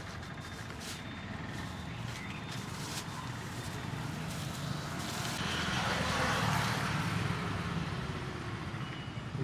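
Street traffic: a steady engine rumble, with a vehicle passing that swells to its loudest about six seconds in and then fades.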